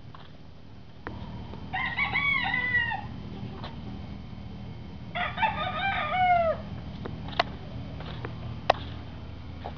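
A rooster crowing twice, each crow about a second and a half long with a falling end, a few seconds apart. Two sharp clicks follow near the end.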